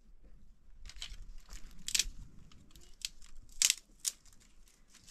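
Dry twigs and brush rustling and crackling as they are handled and snapped. A run of short sharp crackles, the loudest about two seconds in and two more close together near four seconds.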